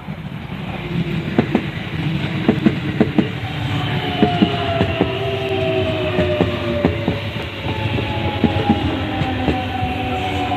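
Electric train passing, its wheels clacking over rail joints, with a motor whine that slowly falls in pitch.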